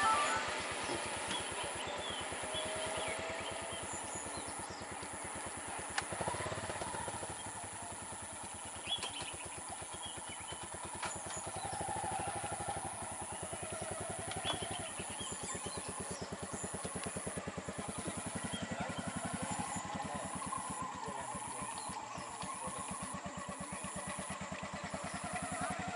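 Motorcycle engine idling close by with a fast, even putter, under a high insect buzz that breaks into short repeated pulses in the second half.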